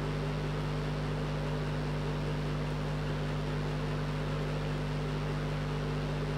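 Steady low hum and hiss of background noise, unchanging throughout, with no other sound.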